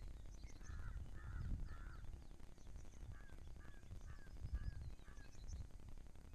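A crow cawing: three harsh caws, then a quicker run of five shorter calls. Small birds chirp faintly and high, over a low rumble.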